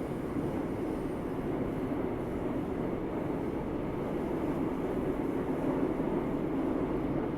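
Steady running noise of a vehicle in motion, an even rumble without distinct events.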